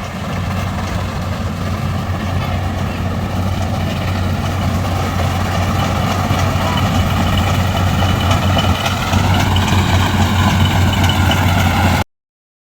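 Engine of a rice harvesting machine running steadily with a deep, even hum. It cuts off abruptly near the end.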